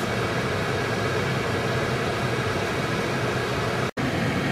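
Steady engine and road noise of a car heard from inside the cabin while driving, with a low hum under it. The sound breaks off for an instant near the end.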